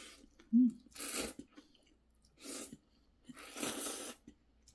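A person slurping spicy ramen noodles in about four hissing sucks, the longest near the end, with a brief low hum of the voice about half a second in.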